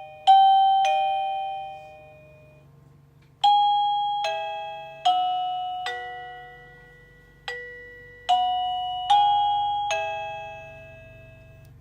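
INNLIFE wireless doorbell receiver playing its electronic chime: a two-note ding-dong, then about three seconds in a longer tune of about eight bell-like notes, each struck and fading.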